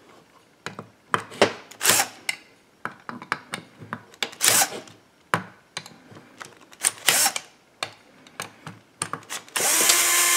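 Scattered clicks and knocks as chainsaw crankcase screws are broken loose with a hand screwdriver, then, about nine and a half seconds in, a cordless drill/driver runs steadily for about a second and a half, backing a case screw out.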